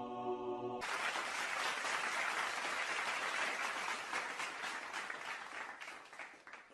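Sustained ambient music tones cut off about a second in, giving way to a crowd's applause, a dense patter of many claps that fades out near the end.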